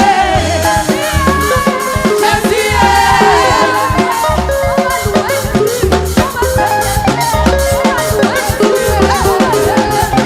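Upbeat gospel praise music: voices singing over drums, percussion and bass, with a steady beat.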